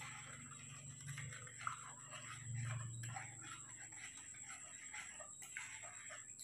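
Faint scratching and small clicks of a small spoon stirring milk in a plastic cup, over a low steady hum and a thin high-pitched whine.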